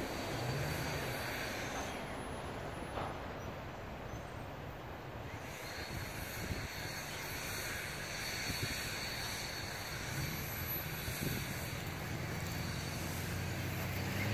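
Steady low rumble of distant vehicles, with a faint, thin, high whine running through most of it.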